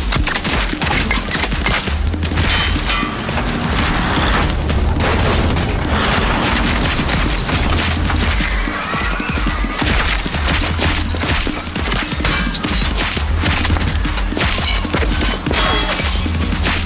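Dense, unbroken gunfire: rapid shots and impacts following one another without pause, over low pulsing music.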